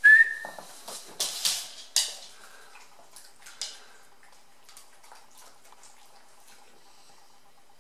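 A dog eating food off a hard plastic plate on a laminate floor: a brief high whistle-like tone at the start, several sharp clattering knocks within the first two seconds and one more about three and a half seconds in, then faint scattered clicks of teeth and nose against the plate.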